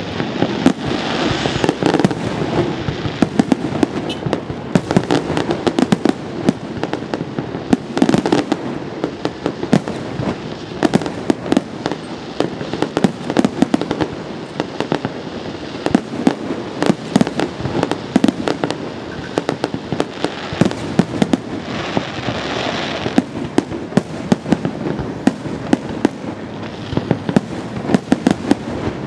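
Aerial fireworks display going off in a continuous barrage of bangs and crackles. Brighter spells of hissing crackle come about a second in and again about twenty-two seconds in.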